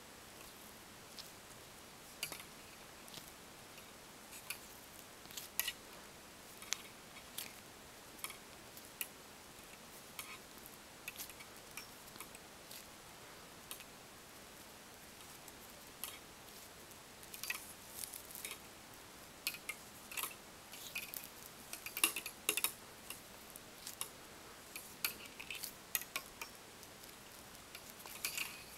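Plastic gimp lacing strands being worked and pulled tight by hand, giving faint, irregular clicks and crinkles that come more often in the second half.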